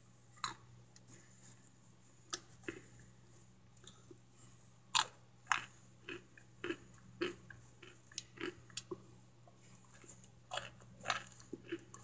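Brittle microwaved cornstarch chunks cracking and crunching as they are broken, a run of irregular sharp crisp cracks, loudest about five seconds in and again near the end.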